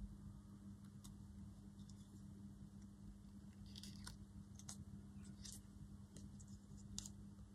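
Near silence over a steady low hum, with a few faint ticks and rustles of paper card being handled by fingers from about four seconds in.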